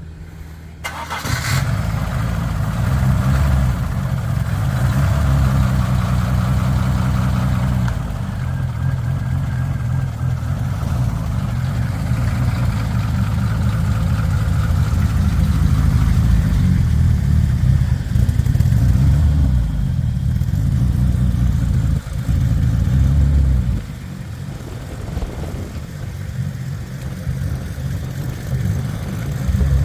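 Ford Pinto four-cylinder engine in a turbo Cortina starting about a second in and then running steadily through a newly fitted custom stainless steel exhaust, dropping in level near the end. The engine has a slightly tappety sound, which the owner takes as a sign the tappets need adjusting.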